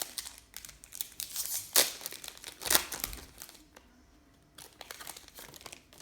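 Crinkling wrapper packaging being handled while opening and sorting trading cards, irregular rustles with two sharp, louder crinkles about two and three seconds in.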